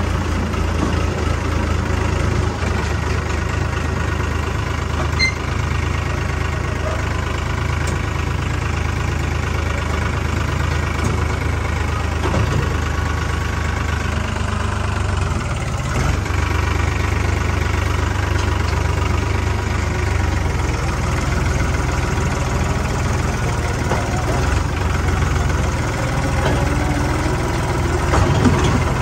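Diesel engine of farm machinery running at a steady speed, an even low drone.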